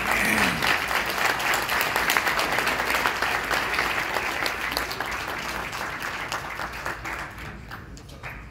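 Audience applauding, a dense patter of many hands clapping that is fullest in the first few seconds and slowly dies down near the end.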